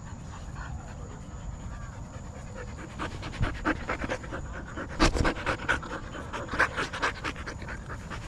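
A husky panting hard and fast close to the microphone, quick breaths about four or five a second, starting about three seconds in.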